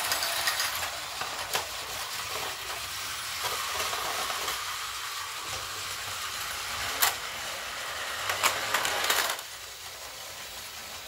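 Plarail toy trains running on the plastic track of an Action Station playset: a steady whir with a few sharp clicks, the sharpest clusters around seven to nine seconds in, then quieter from about nine seconds in.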